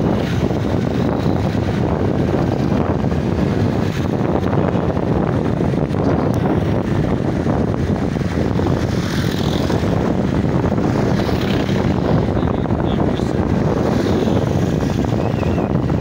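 Motorcycle engine running steadily while riding, mixed with wind noise on the microphone.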